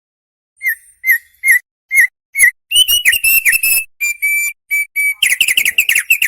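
Opior songbird singing loud whistled song: after a half-second of silence, short curling notes come about twice a second, then quicken into longer phrases and a rapid run of notes near the end.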